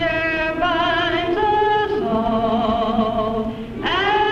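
A choir singing long held notes with vibrato, several voices together; about three-quarters of the way through, the sound dips briefly and a new chord comes in.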